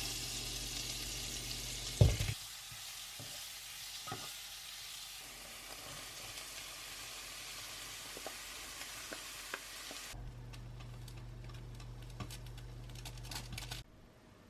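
Food sizzling in a hot frying pan, with one loud knock about two seconds in. The sizzling stops about ten seconds in, leaving a low steady hum.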